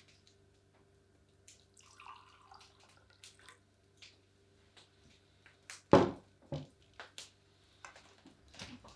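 Liquid poured from a ceramic jug into a goblet for about a second and a half, then the jug set down on a wooden table with a loud knock about six seconds in, followed by a lighter knock and a few small clicks.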